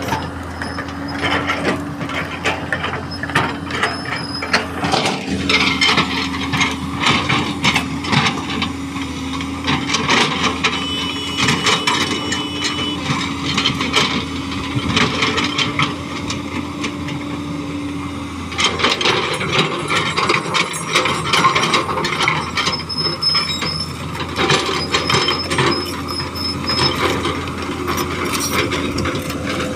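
An engine running, with frequent clanks and knocks over it and a steady hum that drops away about 18 seconds in.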